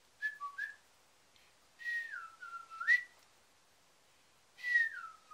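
A person whistling: a few short notes, then a longer whistle that slides down in pitch and jumps back up, and near the end another whistle sliding down.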